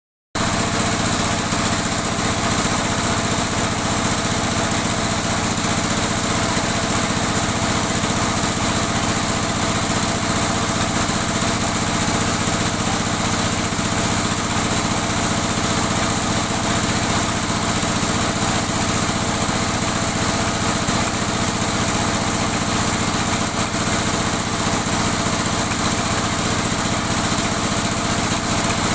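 Bore-well drilling machine running steadily, driven by a three-phase electric motor: an even mechanical drone that cuts in abruptly at the very start and holds at one speed.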